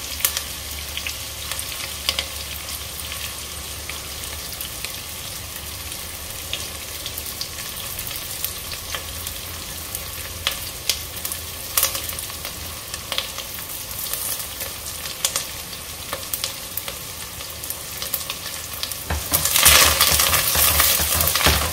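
Sliced onion, whole spices and fresh curry leaves frying in coconut oil in a steel pot over medium-low heat: a steady sizzle with scattered sharp crackles. Near the end a spatula stirs the pot and the sizzle grows louder.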